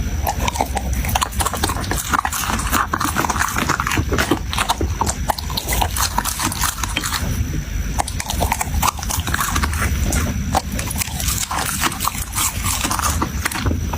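Dog chewing and crunching a large piece of chicken, with dense, irregular crunches and wet smacks throughout.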